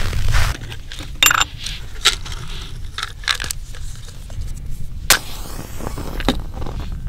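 Sharp metallic clicks and clinks, a few seconds apart, as a red Lucky hurricane lantern's wire frame and glass globe are handled for lighting; one clink near the start rings briefly. A short rush of noise comes just before them at the very start.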